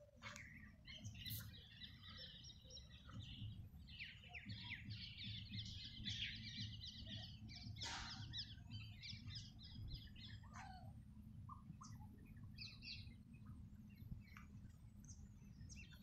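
Small birds chirping and chattering in quick, dense runs of high notes for the first ten seconds or so, then fewer, scattered calls, over a low steady rumble.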